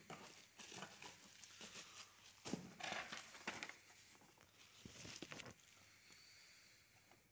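Faint crinkling and rustling of bubble wrap and cardboard packaging being handled, in a few irregular spells that die down near the end.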